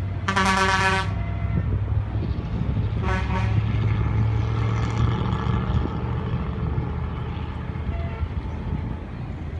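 Horn toots: a short, loud, steady-pitched blast about half a second in and a weaker one around three seconds in, over a deep steady drone that stops about five seconds in.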